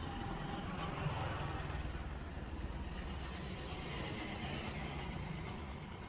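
Street traffic: a steady low rumble of passing and idling vehicles.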